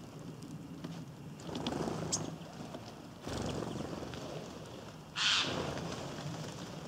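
Outdoor ambience at a bird feeder: a rushing noise that swells three times, the last swell sudden and hissy, with a few faint high bird chirps.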